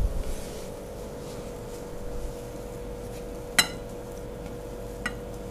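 A spatula scrapes cooked potato stuffing out of a non-stick frying pan into a bowl. The pan and spatula knock against the bowl in a few sharp clinks, the loudest about three and a half seconds in.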